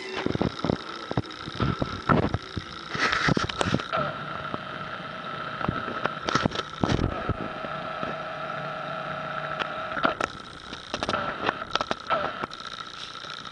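A clear plastic bag of catnip crinkling and rustling in irregular bursts as a cat paws, bites and rolls on it, over a steady high-pitched hum.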